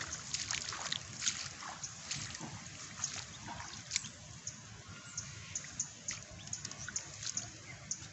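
Bare feet squelching and splashing through waterlogged grass and shallow floodwater, with many irregular small wet clicks and sloshes, busiest in the first few seconds.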